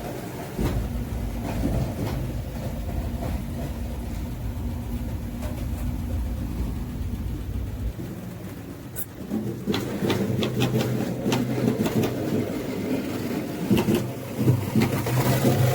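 Motor-driven apple-mill machinery running with a steady low hum. Its sound changes about halfway through, and a series of sharp clicks and knocks follows.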